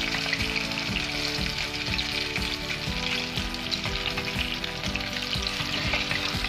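Marinated fish pieces frying in hot oil: a steady sizzle with constant fine crackling.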